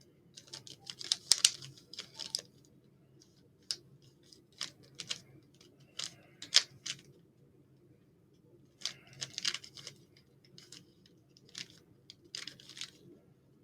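Plastic Rubik's cube being turned by hand: spurts of rapid clicking and clacking as the layers turn, broken by short pauses.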